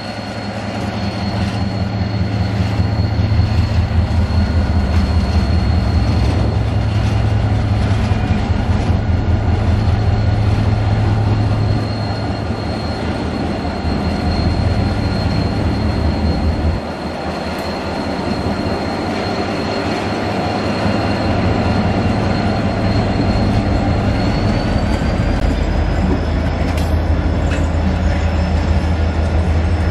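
Pakistan Railways GMU-30 diesel locomotive 4722 passing with a rake of coaches: the deep drone of the diesel engine, then the coaches rolling by with rapid rhythmic wheel noise. A steady high-pitched squeal runs over it and rises slightly in pitch near the end.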